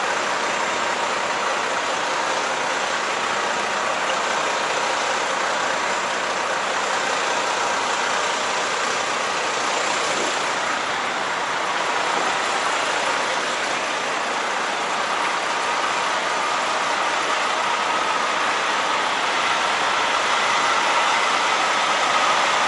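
Steady running noise of a semi-truck, an even blend of engine hum and rushing noise with no breaks or sudden sounds.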